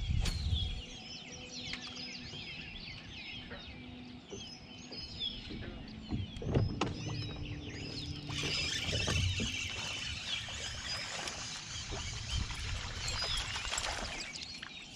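Dawn chorus of many songbirds around a lake: overlapping chirps, trills and whistles, growing busier about eight seconds in. A single sharp knock stands out about six and a half seconds in.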